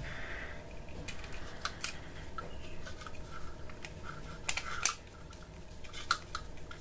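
Small screwdriver turning the terminal screw of a plastic electrical socket to clamp the phase wire, with scattered light clicks and scrapes of metal on plastic. The loudest clicks come about four and a half to five seconds in.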